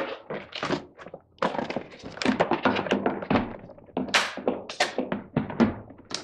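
Hard plastic knocks and thunks as the motor head of a Numatic Henry vacuum cleaner is lowered and fitted onto its tub, with a run of clattering knocks, loudest about four seconds in.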